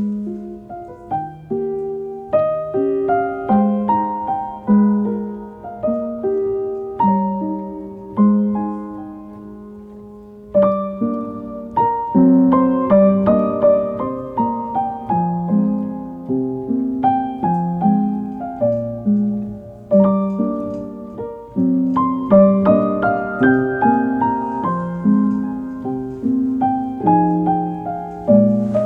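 Background piano music: single notes and chords struck and left to ring, thinning out about a third of the way through before fuller playing resumes.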